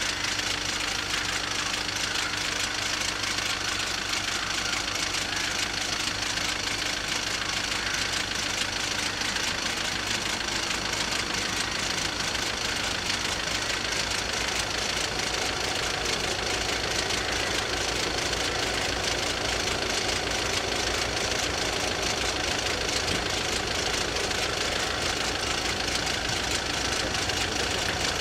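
Two level-crossing warning bells ringing continuously with a fast, even clatter, warning of an approaching train.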